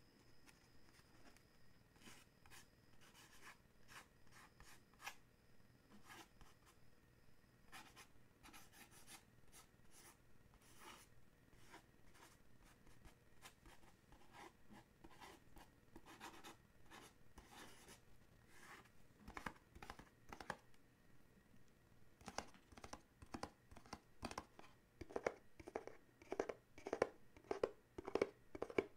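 Fingertips and nails scratching, tracing and tapping on a small cardboard box, close to the microphone. The strokes are faint and scattered at first, then become louder and quicker over the last several seconds.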